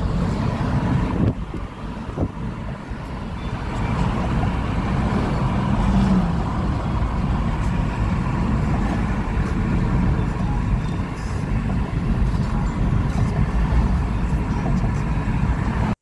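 Wind buffeting through an open car window, mixed with tyre and road noise from the car driving at speed. It eases a little about a second in, then builds again.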